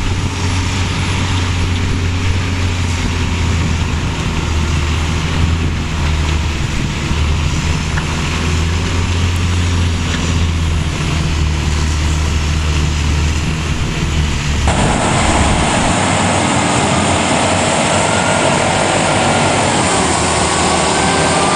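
Snogo truck-mounted snow blowers running under load while casting snow: a steady, loud engine drone with a deep hum. About fifteen seconds in the sound switches to a second blower with a higher-pitched whine.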